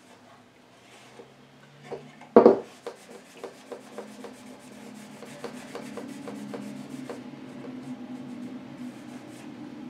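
A soft microfiber cloth rubbing paste wax along the sanded sides of a wooden cradled panel. A single sharp knock about two and a half seconds in, then a run of light ticks, with the rubbing growing steadier in the second half.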